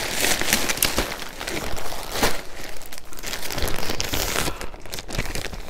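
Clear plastic clothing bag crinkling as it is handled and pulled open, with many irregular small crackles.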